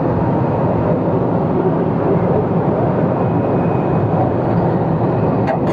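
Midea 30-ton package air-conditioning unit running just after start-up, its compressor and newly refitted condenser fan motor going: a steady air rush and hum with a faint steady whine.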